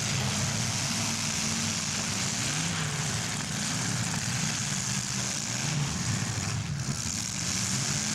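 Several demolition derby cars' engines running together, with their pitch rising and falling as they rev, over a steady hiss of exhaust noise.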